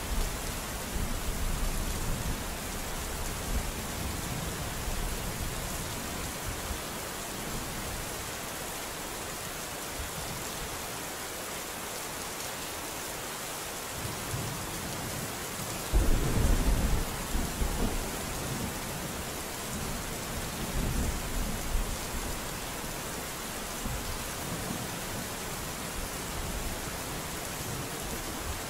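Steady rain with thunder: a low rumble dies away over the first several seconds, a sharper thunderclap just past halfway rumbles on for a couple of seconds, and a fainter roll of thunder follows a few seconds later.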